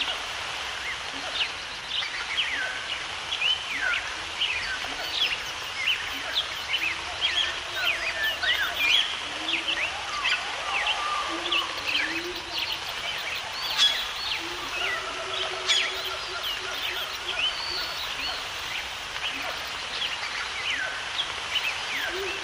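Many birds chirping and calling at once, a dense stream of short quick chirps, with a low call held for a moment now and then, over a steady background hiss of outdoor ambience.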